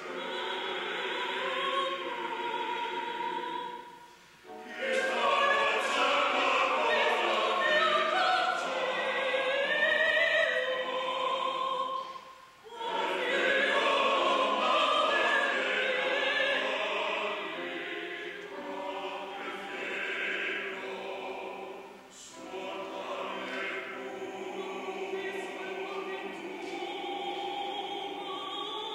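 Choir singing in a reverberant church hall, in long held phrases with short breaks between them about 4, 12 and 22 seconds in. It is louder in the middle and softer in the last third.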